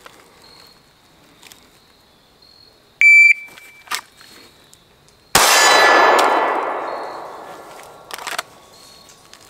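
A shot timer's short start beep, then about two seconds later a single shot from a Sig Sauer P365 9mm pistol. A steel target rings loudly from the hit and fades slowly over about three seconds.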